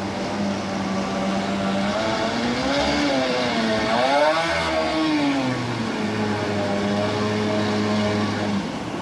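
Jet-drive outboard motor on a Solar 420 Jet boat revving hard as the boat climbs a rapid, its pitch rising and falling a few times about halfway through, then holding steady. The rush of whitewater runs underneath.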